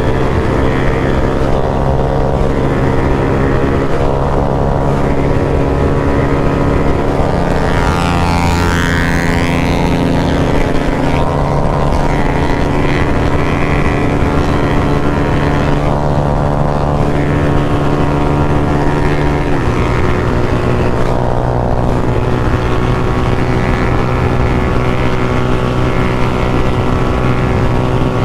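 Motorcycle engine running steadily at cruising speed, heard from the rider's own camera microphone. The engine note drops to a lower pitch about two-thirds of the way through, and there is a brief rising-and-falling whoosh about a third of the way in.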